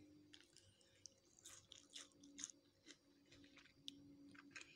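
Faint chewing: a person eating, with scattered soft irregular clicks and crackles of food in the mouth.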